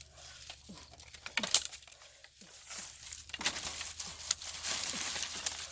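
Rustling and crinkling with scattered small snaps, growing denser about halfway through.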